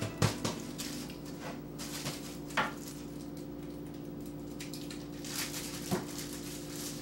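A few light knocks of kitchen things set down on a wooden cutting board and counter, near the start, about a third of the way in and near the end, with soft rustling of a plastic bag as an onion is handled in it. A steady low hum runs underneath.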